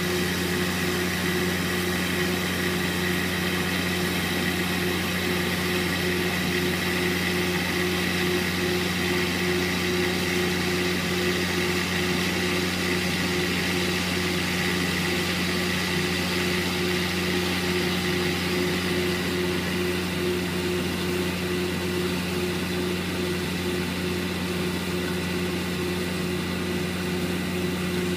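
Squeeze film damper test rig shaken in a circular whirl orbit at 100 Hz, giving a steady hum with overtones and an even hiss over it.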